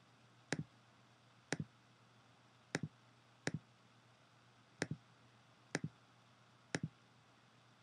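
Computer mouse button clicked seven times at roughly one-second intervals, each click a quick press-and-release pair, making repeated clicks with the magic wand tool to add to a selection in a photo editor.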